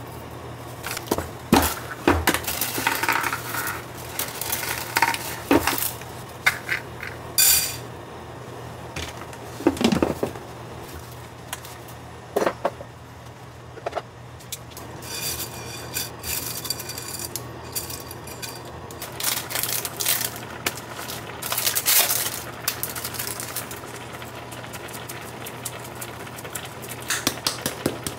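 Kitchen cooking sounds: utensils and food clinking, knocking and rattling against a pan in short scattered bursts, some of them quick runs of ticks, over a steady low hum.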